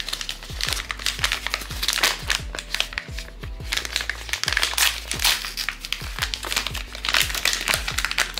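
Thin plastic blind-box wrapper bag crinkling and rustling as it is handled and pulled open, over background music with a low thumping beat about twice a second.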